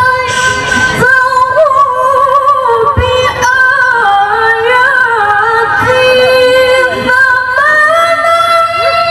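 A woman reciting the Qur'an in melodic tilawah style into a microphone, holding long ornamented notes with quick wavering turns. The line dips lower in the middle and climbs higher near the end.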